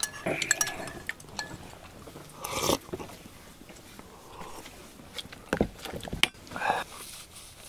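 People eating at a table: chewing and biting, with spoons clicking against porcelain bowls, one clink ringing briefly early on. A few short vocal sounds come in between.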